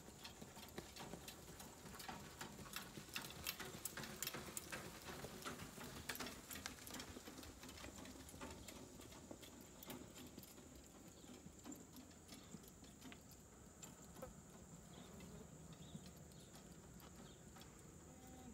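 Faint, irregular clip-clop and rattle of a horse trotting in harness with its two-wheeled cart, thinning out after about ten seconds. A steady high insect buzz runs underneath.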